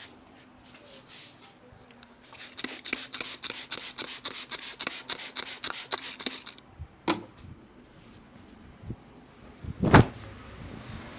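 Hand percussion of a head massage. A rapid run of slaps, about five a second, lasts some four seconds. A single slap follows, then one loud thump a little before the end.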